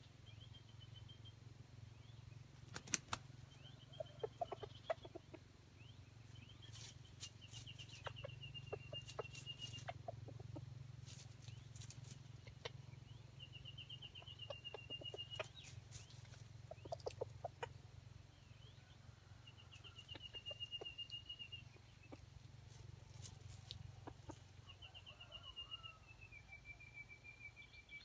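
Red junglefowl rooster foraging, with soft low clucks and sharp ticks and rustles as it pecks and scratches in dry leaf litter. A high, falling trill repeats about every five seconds in the background.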